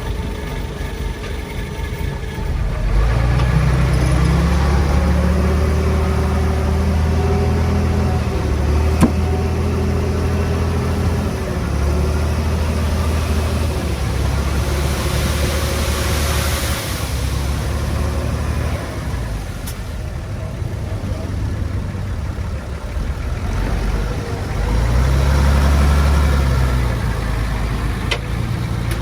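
Diesel engine of heavy earthmoving machinery running with a deep rumble, revving up under load about three seconds in and again near the end, with a hiss in the middle.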